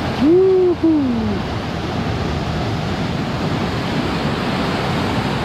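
Heavy ocean surf breaking and washing over volcanic rocks, a steady rush of churning water. A man's voice whoops once near the start.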